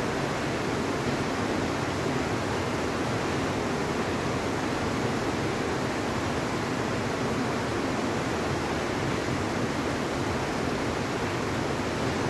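Steady, even rushing noise with no change in level and no distinct events.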